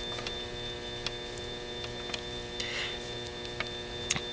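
Steady electrical hum, with a few faint irregular clicks and a short rustle as bare wire ends are twisted together by hand.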